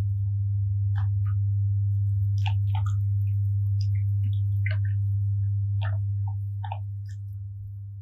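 Electric meat grinder's motor running with a steady low hum while hard candy cracks and snaps in short, irregular clicks as it is ground. The hum eases down over the last couple of seconds.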